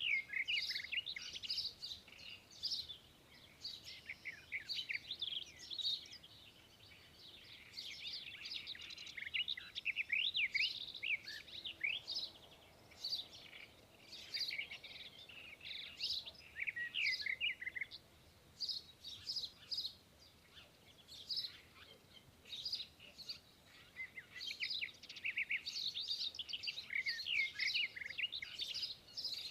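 Black-headed caique parrot calling: runs of short, high chirps and quick whistles in bursts, thinning out for a few seconds past the middle.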